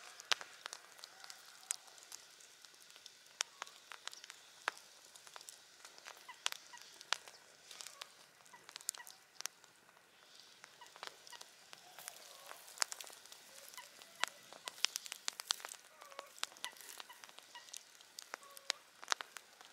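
Wood campfire crackling with frequent sharp, irregular pops, thickest about two-thirds of the way in, over a steady soft hiss.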